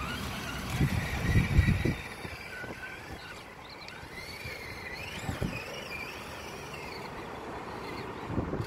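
Electric drive motor and gears of an Axial SCX10 RC crawler whining, the pitch rising and falling with the throttle as it drives through mud. Wind buffets the microphone during the first two seconds.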